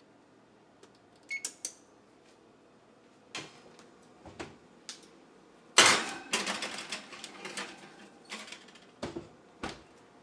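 Kitchen prep handling sounds: a light clink, a few knocks, then, about halfway through, a sharp hit followed by about two seconds of dense clattering and rustling, and two more knocks near the end.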